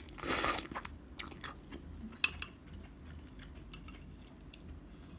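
Eating instant noodle soup with a metal fork from a glass bowl: a short noisy slurp-like burst at the start, then quiet chewing and scattered light clicks of the fork against the glass, the sharpest a little past two seconds in.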